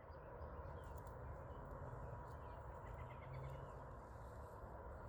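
Faint outdoor background with a small bird chirping in a few short quick series, about a second in and again around two to three seconds in, over a low steady hiss.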